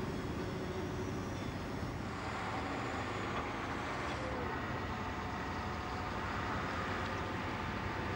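Steady low rumble of vehicle engines and traffic, with no clear events standing out.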